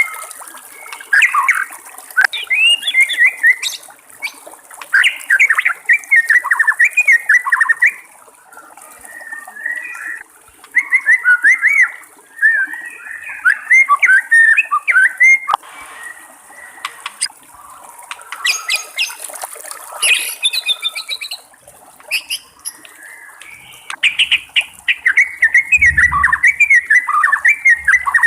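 White-rumped shama singing: several bursts of rapid, varied whistled phrases separated by short pauses.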